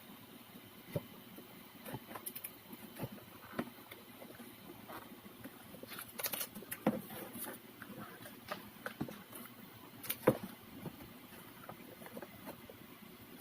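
Irregular light clicks and knocks from small parts and tools being handled, with a busier patch about six seconds in and one sharp click about ten seconds in.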